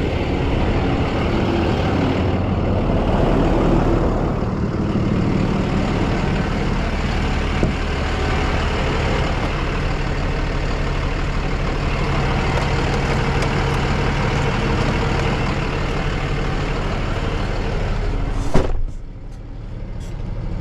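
A tow truck's engine running steadily, with a sharp knock about eighteen seconds in, after which the sound drops off.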